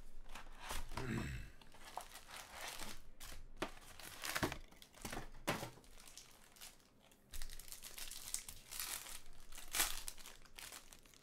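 Foil wrappers of Bowman Chrome baseball card packs crinkling and tearing as packs are pulled from their box and ripped open by hand. The sound comes in irregular bursts of crackly rustle.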